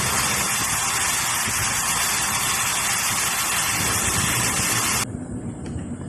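A loud, steady hiss that cuts off abruptly about five seconds in, over a low rumble.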